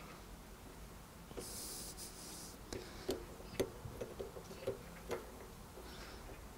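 Small metal clicks and clinks as bicycle cassette cogs and spacers are handled and slid onto a rear wheel's freehub, a dozen or so light taps over a few seconds. A short hiss comes about one and a half seconds in.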